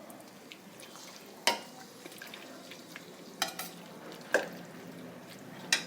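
Hot water being poured from a cup into a pot of chicken curry on the stove, with a faint steady hiss and four sharp clinks, the loudest events.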